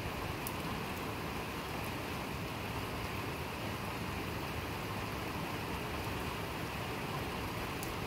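Steady rain falling, an even hiss, with a couple of faint ticks of single drops.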